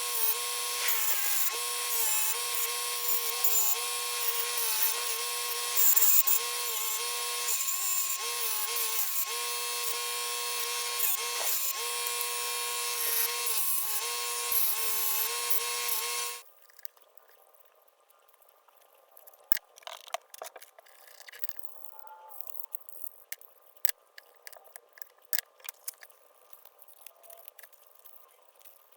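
Small power tool motor running at high speed, its pitch dipping briefly several times as it is pressed against the work. It cuts off suddenly a little past halfway, leaving scattered light clicks and clinks of small parts being handled.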